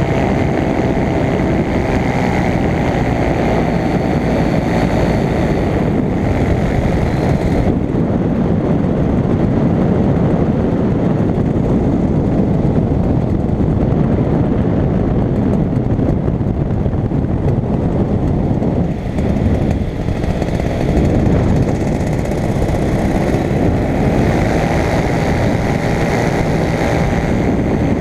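Paramotor engine and propeller running steadily in flight. The sound turns duller about eight seconds in and sharper again near the end.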